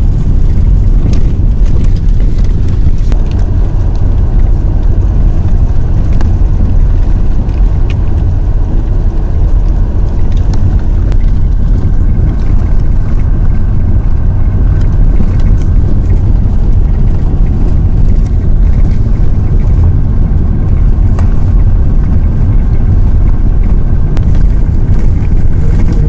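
A car driving, with a loud, steady low rumble of engine and road noise.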